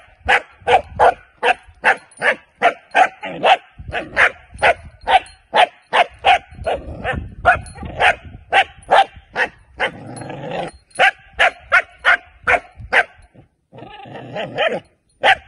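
Puppy barking rapidly and repeatedly, about three sharp barks a second, with a short break near the end. It is barking on cue at a bite tug on the ground away from the handler, in early bark-on-command training.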